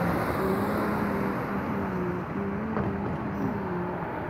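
Freight train passing close by: a steady rumble and rush of the cars on the rails, with a low hum that wavers slightly in pitch.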